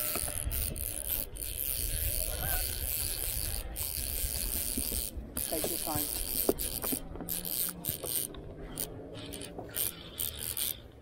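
Fly reel's ratchet clicking in irregular runs while a hooked brown trout is being played on the line.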